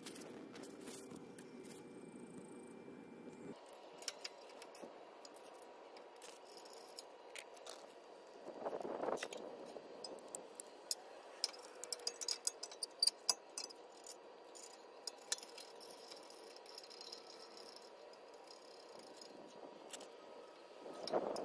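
Scattered light metallic clinks and rattles, irregular and densest in the middle, as tools and small suspension parts are handled at the front wheel hub while the tie rod end nut is fitted.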